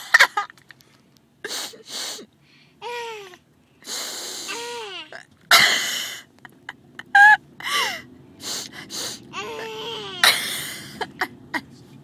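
A person sniffling in loud, quick sniffs again and again, and a baby answering with high squealing laughs that fall in pitch.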